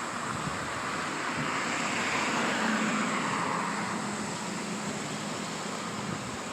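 A vehicle passing by: a rushing noise swells to a peak about halfway through and fades, with a faint low hum at its loudest.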